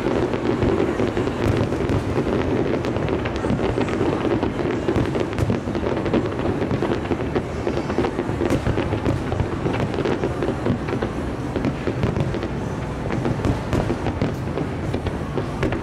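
Aerial fireworks display: a dense, unbroken barrage of bursts and crackling.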